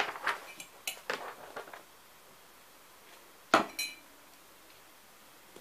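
Hard kitchenware clinking: a few light knocks, then one sharp ringing clink about three and a half seconds in.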